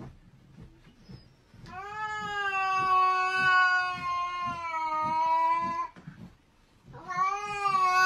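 A grey-and-white cat yowls: one long drawn-out call lasting about four seconds, starting slightly higher and sinking a little in pitch. A second yowl begins near the end.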